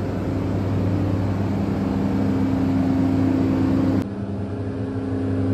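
Steady machinery hum with several held low tones from equipment running nearby; the sound changes abruptly about four seconds in, where the picture cuts.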